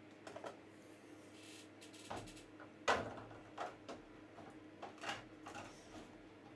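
Light clicks, taps and knocks from trading cards and card packs being handled and set down on a table, the sharpest knock about three seconds in.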